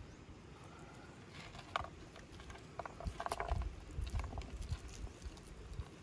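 Grilled trout being handled and pulled apart by hand: scattered soft crackles and small clicks of crisp skin and flesh breaking, over a low rumble of wind on the microphone.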